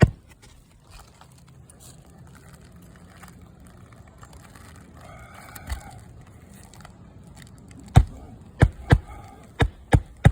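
Roofing hammer driving nails through asphalt shingles into the roof deck. There is one blow about halfway through, then a quick run of about five sharp strikes near the end.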